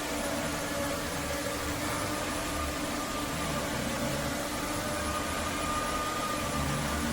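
Roborock F25 GT cordless wet-dry vacuum mop running steadily: an even rush of air with a few faint steady tones over it.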